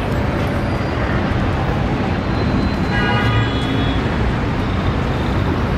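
City street traffic noise: a steady, loud rumble of passing vehicles, with a brief high-pitched tone about three seconds in.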